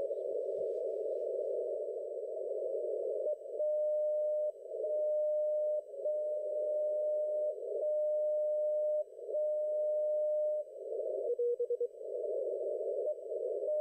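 Shortwave receiver audio from an HF transceiver tuned to 30 m CW through a narrow filter: steady band hiss with a single Morse tone keyed on and off in about five long dashes, then a few short blips near the end.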